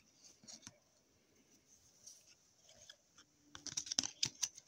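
Trading cards being flipped through by hand: faint card-on-card clicks and rustles, with a quick run of sharper clicks about three and a half seconds in.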